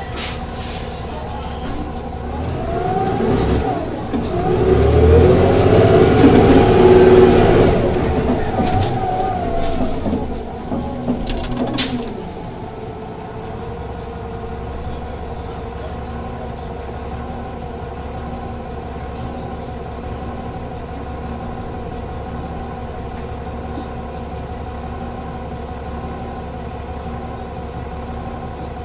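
Daimler Orion 07.501 CNG city bus with a Cummins Westport ISL G natural-gas engine: a loud swell of engine and road noise, its pitch rising then falling over several seconds, then a steady low idle from about twelve seconds in.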